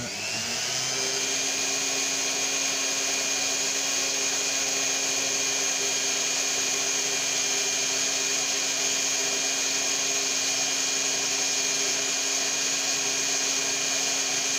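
Handheld rotary tool with a diamond bit starting up, rising to a steady high whine within about the first second, then running evenly as it grinds into wet stone.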